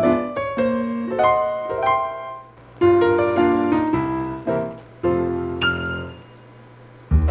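Background piano music: a slow, gentle run of single notes and chords, each struck and left to fade, with a short lull before a new chord near the end.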